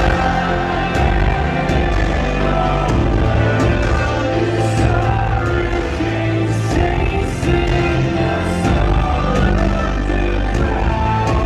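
Live rock band playing loud, with sustained bass notes and regular drum hits.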